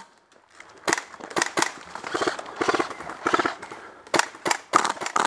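Airsoft guns firing: a string of sharp, irregular shots, some single and some in quick pairs and short bursts.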